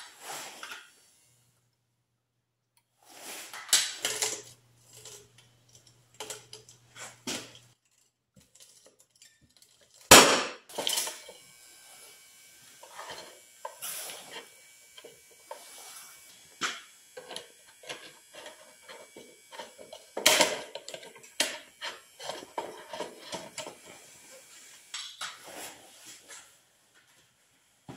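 Clattering and knocking of a pop-up toaster being handled and set down on a steel plate, with a screwdriver wedged into its lever, as metal and plastic clink and rattle. Two sharp, loud knocks stand out, about ten and twenty seconds in.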